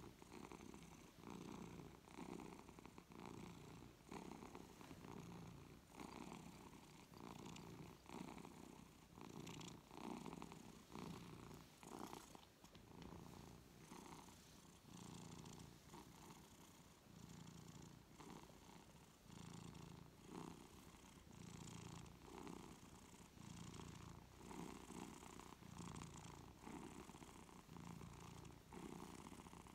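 Long-haired tabby cat purring softly as it is stroked, a contented purr that swells and fades with each breath, a little more than once a second.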